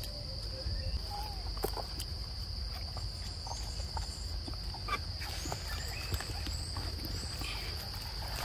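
Steady high-pitched drone of forest insects, with scattered light clicks and rustles and a few short high chirps over it.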